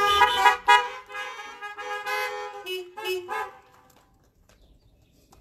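A woman singing the last line of a song into a microphone, her voice wavering on sustained notes and ending on a lower held note that fades out about four seconds in.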